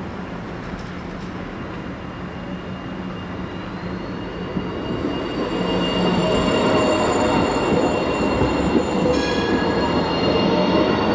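A tram pulls in, its traction motors whining in several tones that glide up and down while the wheels squeal on the rails. It grows louder from about halfway through, over a steady low hum.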